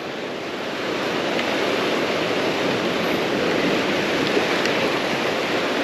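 Ocean surf breaking and washing over rocks, a steady rush of water that grows a little louder about a second in.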